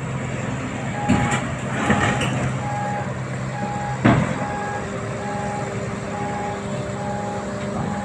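A construction vehicle's backup warning alarm beeping about once a second over the running hum of heavy diesel machinery, with one sharp bang about four seconds in.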